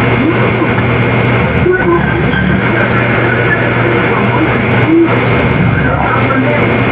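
Heavily amplified recording noise: a loud, dense hiss with a steady low hum beneath it and faint, fleeting fragments of muffled sound.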